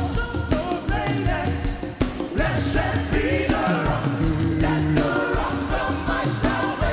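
Live gospel worship music: a singer and choir over a band with a steady beat and bass.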